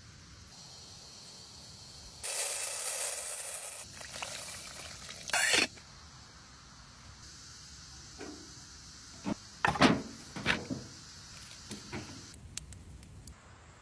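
Water pouring and splashing in a few separate bursts, the loudest about ten seconds in, after a hissing pour near the start.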